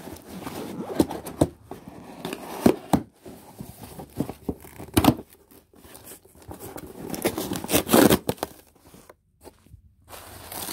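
Cardboard box being forced open by hand: irregular tearing, scraping and crinkling of packaging with sharp knocks, and a longer run of tearing and rustling about eight seconds in, then a brief lull.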